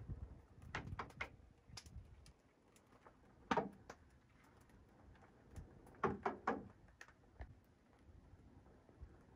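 Faint, scattered knocks and clicks: one sharper knock a few seconds in and a quick run of three a little past the middle.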